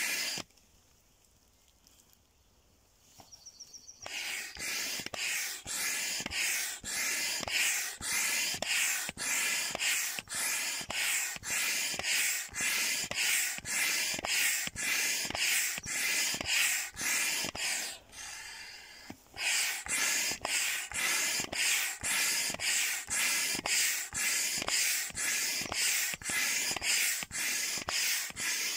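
Hand pump pushing air into a large vinyl inflatable duck: a steady rhythm of hissing pump strokes, about two a second. The strokes stop for a few seconds near the start and briefly about two-thirds of the way through.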